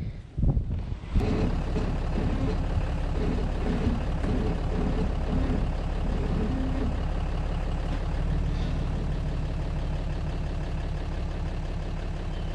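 Dodge dually pickup's engine idling steadily, starting about a second in after a few short knocks.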